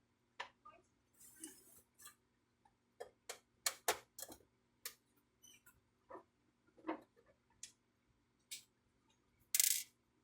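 Irregular clicks and taps of plastic inkjet-printer parts being handled during disassembly, some in quick clusters, with one louder short rustle near the end.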